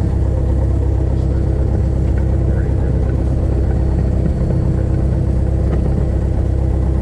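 Cessna Skyhawk's piston engine and propeller running steadily at low idle, a constant low drone with a steady hum, heard from inside the cockpit.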